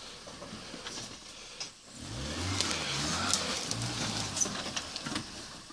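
Off-road 4x4's engine revving up and down under load, starting about two seconds in, with scattered sharp crackles over it.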